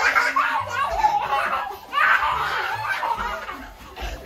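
Young children laughing and squealing with delight, in two main bursts about two seconds apart.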